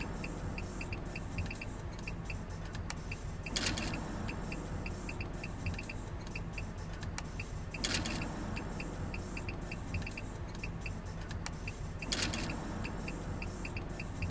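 Inside a car's cabin: the engine idling as a steady low hum while the turn-signal indicator ticks evenly, about three ticks a second. A brief louder rush cuts in three times, about four seconds apart.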